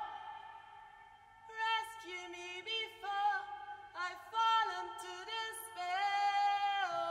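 Woman singing: after a quiet first second and a half, a run of short sung notes with slides between them, ending on a long held note.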